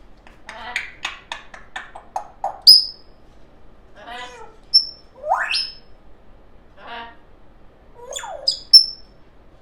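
African grey parrot making mimicked noises: a quick run of clicks, then several sharp whistles and rising whistled chirps, with a couple of short buzzy calls between.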